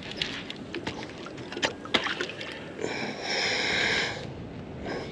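Fishing reel running while a hooked bull shark is fought. A buzz lasts about a second near the middle, with two sharp knocks before it.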